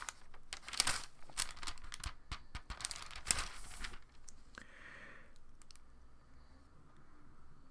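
Thin Bible pages being flipped by hand, a rapid papery rustling and crinkling for about four seconds, then a softer rustle and quieter handling as the page is found.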